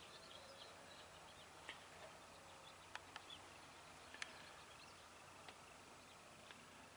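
Near silence: faint outdoor background with scattered faint bird chirps and a few soft clicks.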